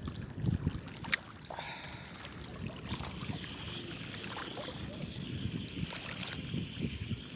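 Small waves lapping and sloshing against shoreline rocks, with wind on the microphone and a few light clicks from handling the spinning rod and reel.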